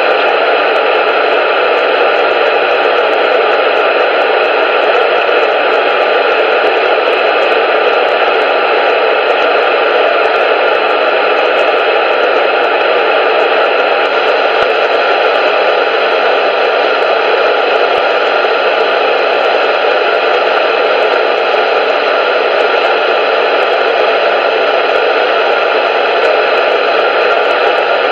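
Loud, steady static hiss with no bass, unchanging throughout.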